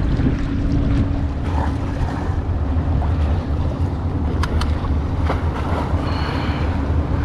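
Wind buffeting the microphone over water lapping against a kayak hull. A few light clicks about four and five seconds in as a caught fish is handled on the deck, and a brief squeak near the end.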